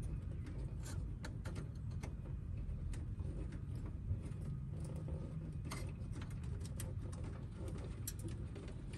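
Scattered small clicks and rustles of wires and connectors being handled behind the dashboard, over a low steady background rumble.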